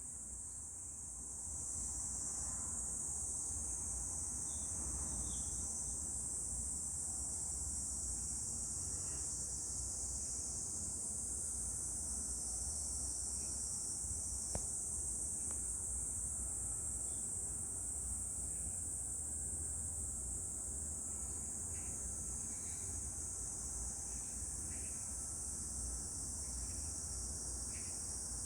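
Dense, steady high-pitched insect chorus, with a low rumble underneath.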